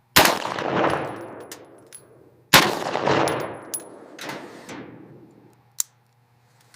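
Two loud rifle shots about two and a half seconds apart, each followed by a long echoing tail, with a few lighter clicks and a sharp tick as the second echo fades.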